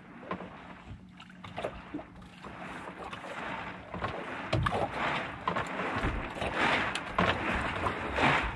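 Water slapping and sloshing against the hull of a small skiff, with wind on the microphone and scattered knocks and clicks, growing louder about halfway through.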